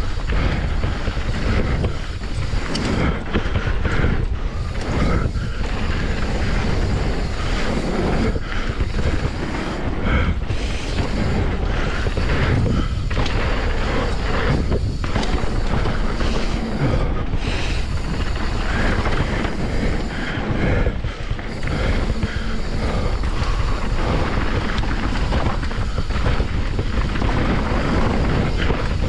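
Wind buffeting a chest-mounted action camera's microphone at riding speed, over the steady rumble of mountain bike tyres rolling on a packed-dirt trail, with brief knocks as the bike hits bumps.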